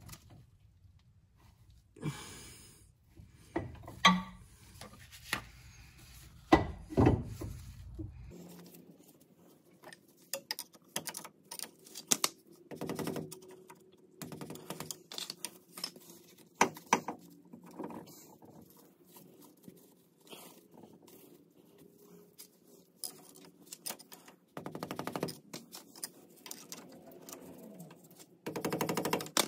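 Irregular metallic clicks and knocks, a few of them louder, as steel carrier bearing shims are worked and tapped into place beside the differential carrier in a Dana 44 axle housing.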